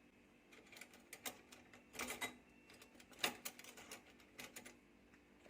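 Faint clicks and light clinks of kitchen utensils being handled, with a few sharper knocks about two and three seconds in.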